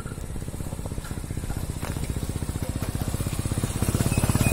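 Lifan KPR 165 motorcycle engine running at low speed with an even beat of exhaust pulses, growing louder as the bike rolls closer.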